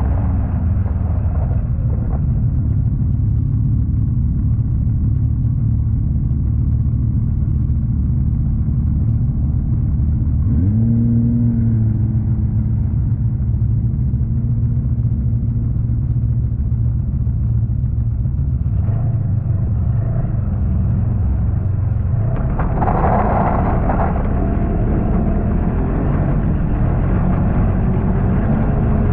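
Snowmobile engine running under way, a steady low rumble whose pitch rises as it speeds up about ten seconds in. A brief rush of noise comes over it around twenty-three seconds in.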